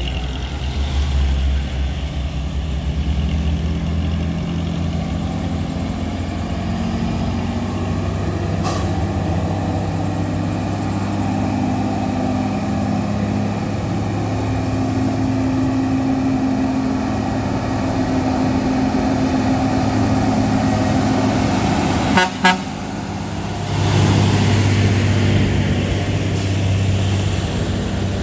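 Truck and pickup engines pulling slowly up a steep climb, a steady low engine drone. A heavy diesel truck grows louder near the end as it comes close. There is a short sharp noise about three-quarters of the way through.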